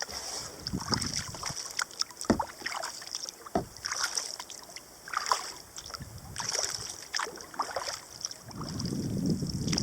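Kayak paddle blades dipping into river water stroke after stroke, with splashes and drips about once a second. Wind buffets the microphone from about eight and a half seconds in.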